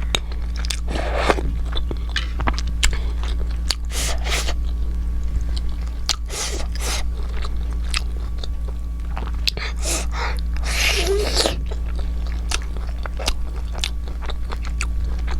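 A person chewing and biting steamed momo dumplings close to the microphone, with many small wet clicks and a few longer hissy mouth sounds. A steady low hum runs underneath.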